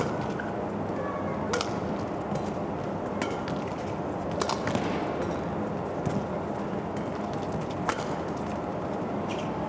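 Badminton rally: rackets striking the shuttlecock in sharp cracks about every one and a half seconds, about six strokes, with brief squeaks of court shoes, over a steady arena crowd murmur.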